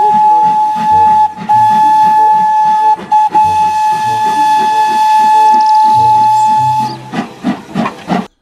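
Steam whistle of a full-size Thomas the Tank Engine replica steam locomotive blowing one long, steady blast, broken twice by brief gaps, one with a quick toot. The whistle stops about seven seconds in, followed by a few short puffs.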